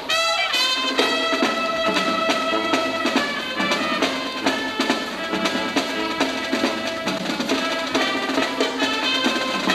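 Youth marching band playing: trumpets, clarinets and drums. It opens with a quick downward run, then the band holds sustained chords that change about every second over steady drum hits.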